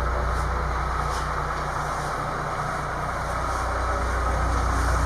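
A crane's engine running steadily outside, heard as a low, even drone.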